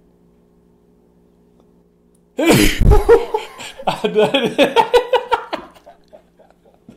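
A man's single loud sneeze about two and a half seconds in, brought on by pulling his beard hair, followed by a couple of seconds of laughter.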